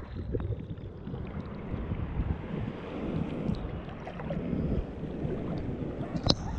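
Wind buffeting a GoPro's microphone in shallow surf, an uneven low rumble with water lapping around the wader. A single sharp tap comes near the end.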